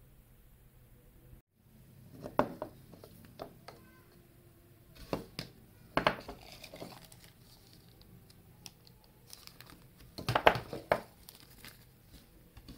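Plastic wrapping crinkling and rustling in several irregular bursts, with sharp clicks, as a wristwatch is handled out of its cylindrical metal tin packaging. The loudest burst comes near the end.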